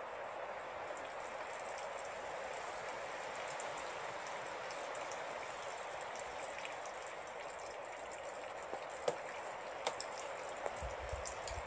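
Steady hiss of rain falling, with scattered faint drip ticks. Right at the end, low wind gusts start buffeting the microphone.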